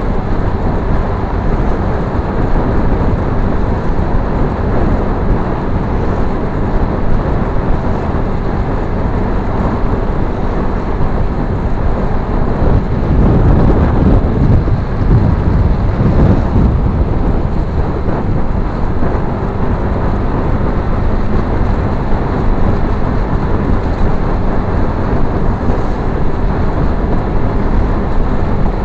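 Steady rumble of wind buffeting the microphone of a motorcycle-mounted camera at road speed, with the motorcycle's running and road noise beneath. A louder low rumble swells in the middle as an oncoming vehicle passes.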